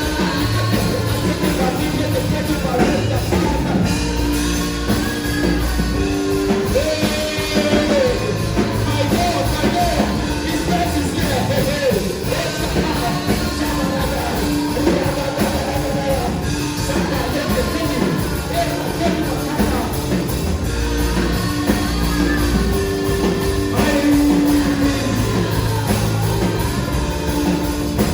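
Live worship music: a band with drums and guitar playing continuously while a voice sings over it with long held and sliding notes.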